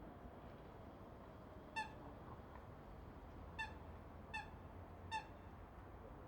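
River water flowing with a faint, steady rush, while a bird gives four short, sharp calls: one about two seconds in, then three more spaced under a second apart later on.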